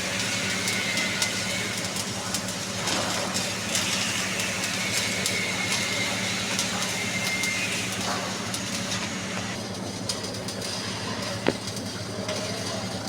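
Electric arc welding: a continuous crackling sizzle from the arc over a steady low hum, with one sharp click about eleven and a half seconds in.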